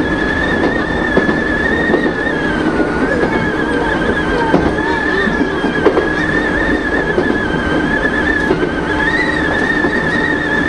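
Nishitetsu Miyajidake Line electric train running along the track, heard from the cab: a steady high whine that wavers slightly in pitch over the rumble of the wheels, with a few sharp knocks from the rails.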